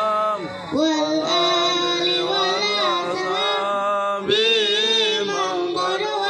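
A boy chanting a sholawat, a sung Arabic blessing on the Prophet, into a microphone over a PA, holding long ornamented notes that waver in pitch. He breaks off briefly twice to breathe.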